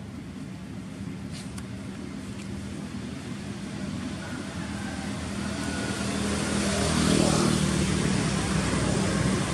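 A motor vehicle approaching and going by, its engine hum and road noise growing steadily louder over several seconds and loudest about seven seconds in.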